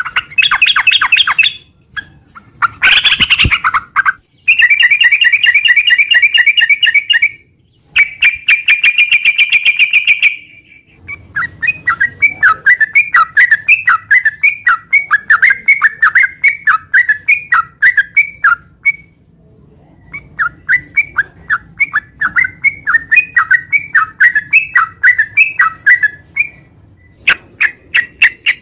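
Yellow-vented bulbul (trucukan) singing: several long, rapid trills in the first ten seconds, then a long series of short chattering notes at about three or four a second, pausing briefly midway, with a trill again near the end.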